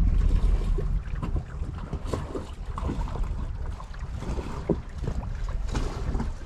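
Wind buffeting the microphone aboard a sailboat under sail, a low rumble that is heaviest in the first second and then eases. Scattered short clicks and creaks sound over it.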